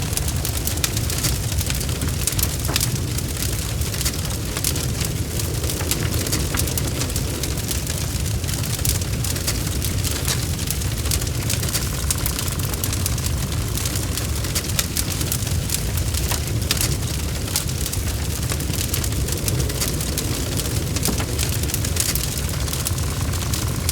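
Wood fire burning in a fireplace: a steady low rumble with frequent crackles and pops.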